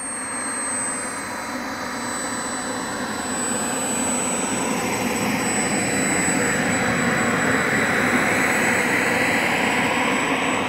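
Model jet's small turbine engine running at low power with a steady high whine over a rushing hiss, growing louder over the first half as the jet rolls closer.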